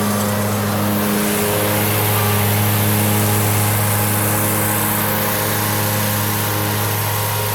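Ferris zero-turn riding mower's engine running steadily under load, with a high hiss over the engine tone.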